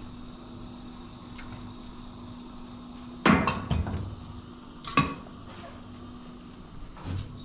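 Kitchen clatter: a loud sharp knock about three seconds in with a short rattle after it, another sharp knock about five seconds in, and a lighter one near the end, as things are handled and set down at a kitchen counter. A faint steady hum runs beneath until the first knock.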